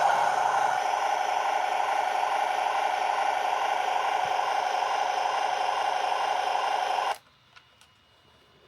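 Brand-new Taigen premium V3 RC tank gearbox running with a steady buzz, which cuts off suddenly about seven seconds in, followed by a few faint ticks. The owner cannot yet tell why the gearbox buzzes and hopes it is not a motherboard or wiring fault.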